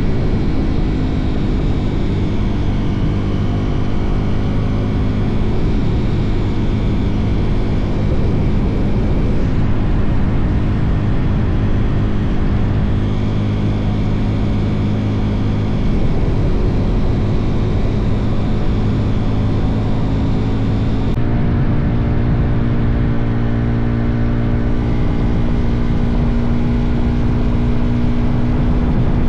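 Suzuki DR-Z400's single-cylinder four-stroke engine running at a steady cruising speed, with wind rushing over the microphone. The engine note changes abruptly about two-thirds of the way through.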